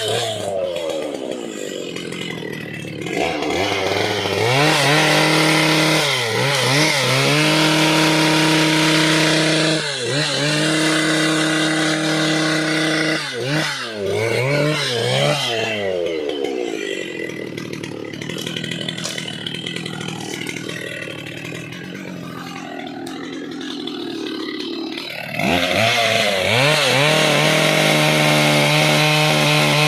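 Two-stroke petrol chainsaw at full throttle cutting dry, hard teak. Its engine note dips and recovers several times as the chain bites. Past the middle it drops to a lower, quieter speed for about ten seconds, then revs straight back up near the end.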